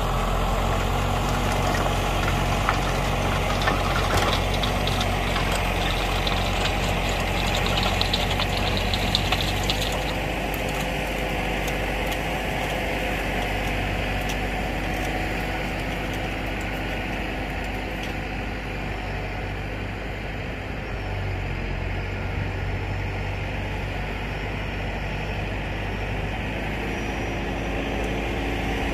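Tractor diesel engine running steadily while driving a rotary tiller through soil, with rattling clatter over the engine for about the first ten seconds. After that it goes on more quietly and evenly as the tractor moves off.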